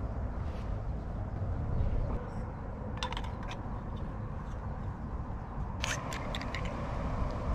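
Small metal camp cook pot and gear being handled: a few light clinks about three seconds in, and a quicker cluster of clicks and clinks around six seconds, each leaving a faint ring. Under it all runs a steady low rumble.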